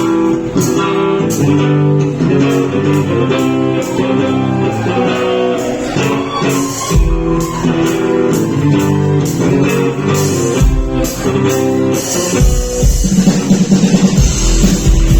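Live rock band playing an instrumental intro: guitar picking a quick repeated riff over drums, with a deep bass layer coming in about seven seconds in and the band getting fuller and louder from about twelve seconds.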